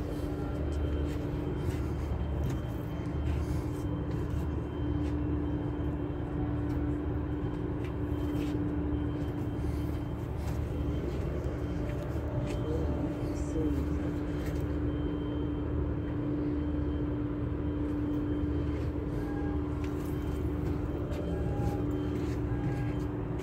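Ship's machinery running: a steady low hum with a constant droning tone, unchanging throughout, with a few faint clicks.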